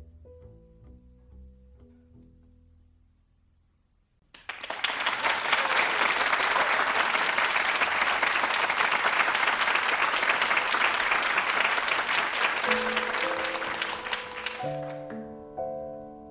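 The band's last notes die away. About four seconds in, an audience breaks into applause, which fades near the end as piano chords begin the next number.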